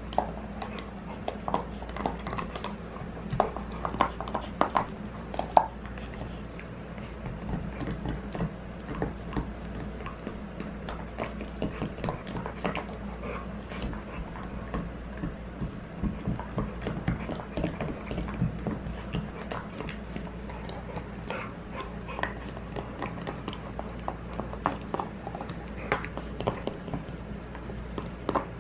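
A pit bull gnawing a hard scented chew-bone toy: irregular clicks and snaps of teeth working on the hard bone, with a steady low hum behind.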